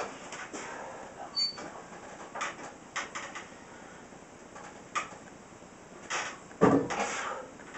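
Barbell loaded with iron plates clicking and knocking against the bench and rack during incline bench press reps, with a loud burst of breath from the lifter near the end.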